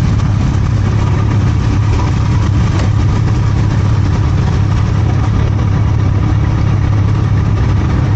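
Motorcycle engine idling steadily, with a low even drone.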